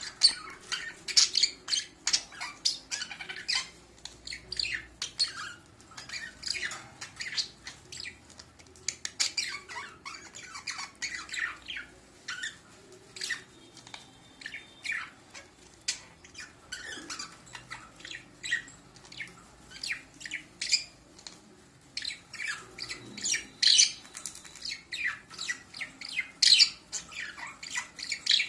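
Budgerigars chattering: rapid, scratchy chirps and squawks that keep up with only short breaks.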